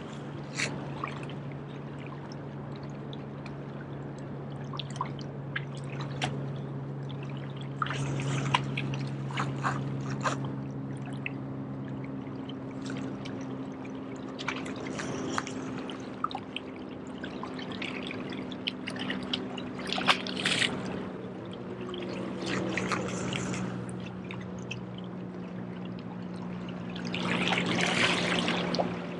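Small waves washing and splashing against jetty rocks, with scattered splashes and a louder surge of water near the end. A steady low hum runs underneath.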